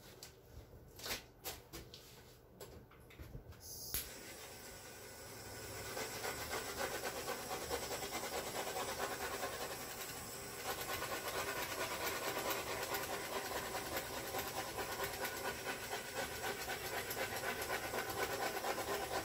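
Handheld torch: a few sharp clicks, then the flame comes on about four seconds in and hisses steadily over the wet paint, dipping briefly a little after ten seconds.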